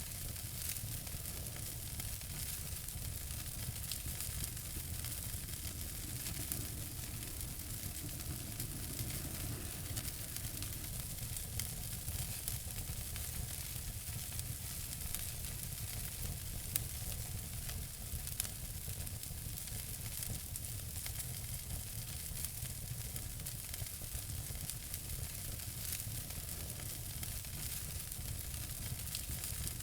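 Wood fire in a fireplace crackling steadily over a soft hiss, with a couple of louder pops a little past halfway.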